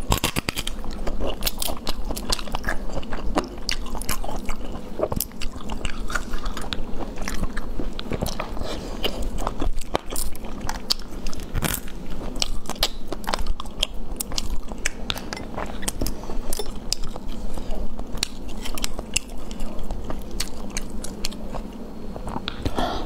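Close-miked eating sounds of a person chewing and biting soft, saucy braised food, with many sharp mouth clicks and smacks throughout.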